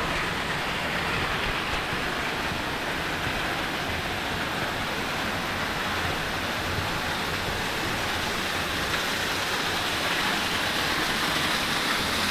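Steady rushing water of a waterfall, growing slightly louder toward the end.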